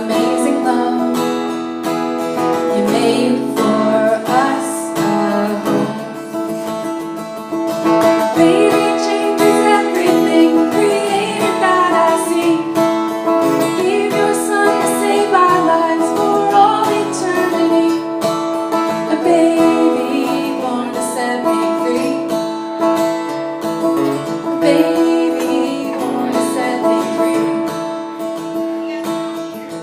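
Acoustic guitar playing a song, with a singing voice over it.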